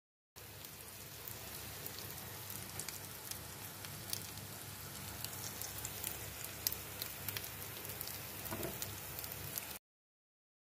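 Grated potato and ham patties sizzling as they fry in oil in a four-cup pan: a steady hiss with frequent small crackling pops. It cuts off abruptly near the end.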